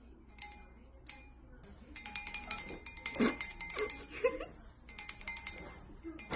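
Small brass hand bell ringing in quick, jangling strokes as a cat shakes it in its mouth. It starts about two seconds in, stops briefly, then rings again.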